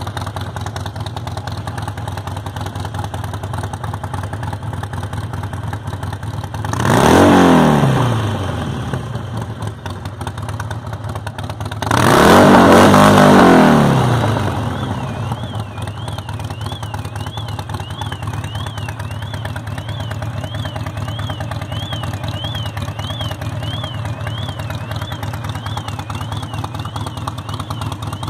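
Harley-Davidson Sportster 1200's air-cooled V-twin idling steadily, revved twice: briefly about seven seconds in, and longer about twelve seconds in, each time climbing in pitch and then dropping back to idle.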